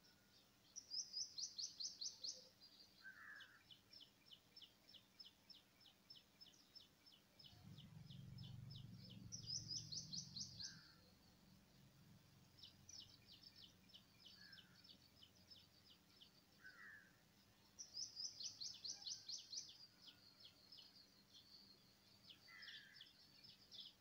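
A small bird calling: a fast, high trill given three times, with softer runs of high ticking notes and a few lower notes between. A low rumble rises and fades around the middle.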